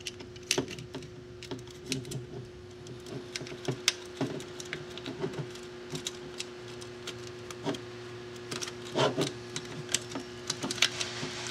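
Irregular light clicks, taps and rattles of a wire harness and its plug connectors being fed by hand through a hole in a bill validator's chassis, knocking against the housing, over a steady faint hum.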